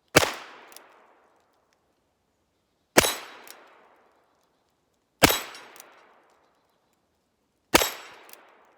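Ruger Wrangler .22 LR single-action revolver firing four single shots about two and a half seconds apart, each followed by a fainter sharp clank about half a second later.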